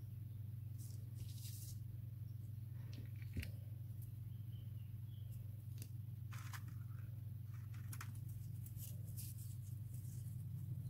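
Steady low hum with faint, scattered rustles and clicks of paper quilling pieces being handled, and one soft knock about three seconds in.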